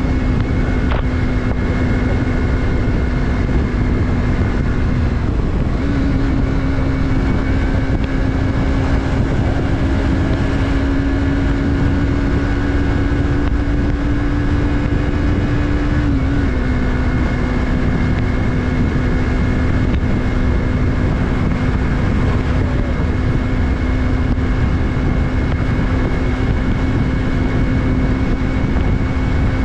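Yamaha MT-03's 321 cc parallel-twin engine running at a steady cruise, with wind and road rush. The engine note steps up slightly about five seconds in, holds, and falls back about sixteen seconds in.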